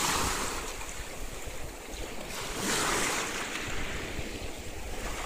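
Sea surf washing in, a steady rush of water with wind on the microphone; one wave surges louder a little under three seconds in.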